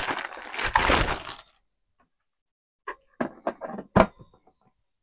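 Plastic parts of a baby-bottle sterilizer being handled and fitted together: a rustling clatter, then a run of sharp plastic clicks and knocks, the loudest about four seconds in, as the white cover goes on over the gray part.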